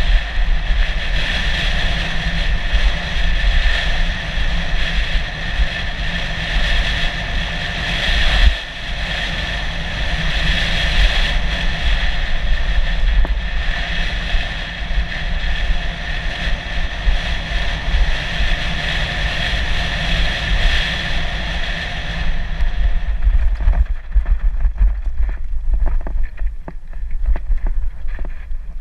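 Mountain bike rolling fast on a dirt singletrack: wind rushing over the camera's microphone with a low rumble, and a steady high whirring from the moving bike. About three-quarters of the way through the whirring fades and light rattling clicks come through as the bike goes over rougher, rockier ground.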